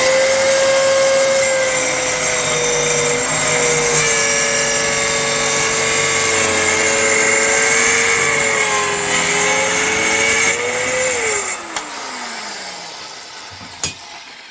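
Black & Decker KS227 500-watt corded circular saw cutting through wood, its motor struggling and sagging a little in pitch under the load. About eleven seconds in the cut ends and the motor winds down with a falling whine.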